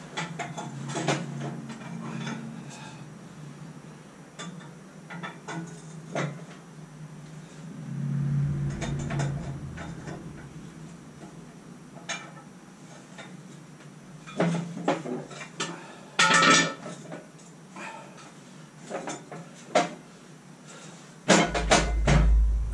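Metal tools and parts being handled: scattered clicks, clinks and clanks, a denser run of clanking about sixteen seconds in, and a couple of heavier low thumps around eight seconds in and near the end.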